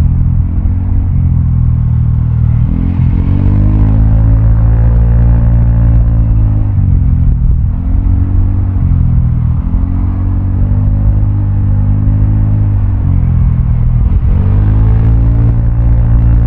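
Vespa automatic scooter running through a Prospeed Black CNC aftermarket exhaust while riding. The engine note climbs under throttle and drops as the rider eases off, over and over, with the exhaust note loud throughout.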